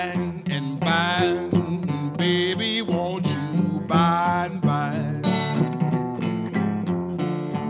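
Solo acoustic blues: a steel-string acoustic guitar played in a steady pattern, with a man's voice singing long, wavering notes over the first five seconds or so.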